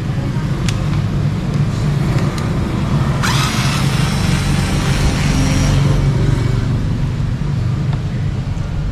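Steady low background hum, with a cordless electric screwdriver running for about three seconds, starting about three seconds in, with a hissy, whirring sound.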